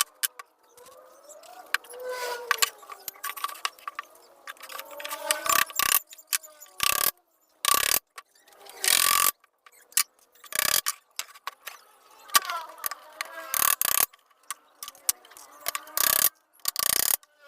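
Tool and workpiece noise from assembling a small wooden cabinet: irregular short bursts of clicking and rasping, each lasting up to about half a second, with sharp clicks between them.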